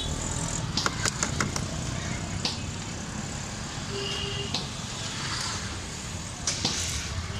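Steady traffic hum of a busy street, with scattered light clicks and knocks as plastic cups and syrup tubs are handled.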